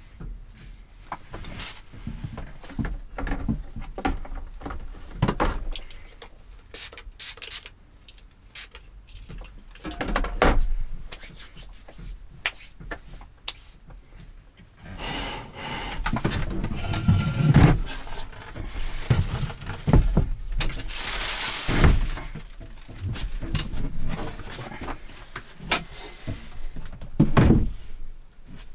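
Small handling sounds in a small wooden room: scattered light knocks and clicks, then a longer stretch of hands rubbing together. Near the end comes a thump as a folding chair is folded.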